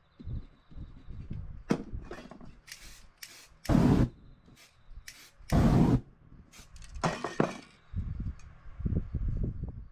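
Spray-paint art tools being handled, with scattered taps, scrapes and thumps. Several hissing bursts of aerosol spray set alight as flame to dry the paint; the two loudest last about half a second each, around four and six seconds in.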